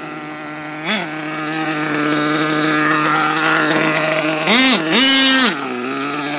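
Small nitro engine of an OFNA RC truck running steadily at low revs. It is blipped once about a second in, then revved twice in quick succession near the end, its pitch jumping up and dropping back each time.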